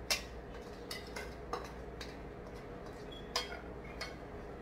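Stainless steel colander and wooden spoon knocking against a steel pot as boiled potatoes are scraped out into it: a sharp clank right at the start, then a few lighter knocks and clinks.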